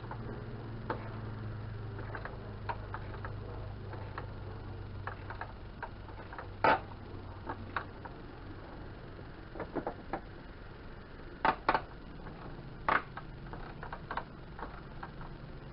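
Hand ratchet wrench turning a bolt in the engine bay, its pawl clicking in short runs, with a few louder sharp metallic knocks of the tool against metal through the middle.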